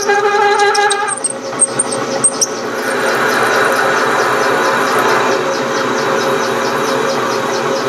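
South Bend 13-inch lathe running, its spindle turning a metal shaft while the tool takes a cut. A steady mechanical running noise with a fast, even ticking in it; a clear tone and sharp high clicks in the first couple of seconds give way to a fuller, louder running sound from about two and a half seconds in.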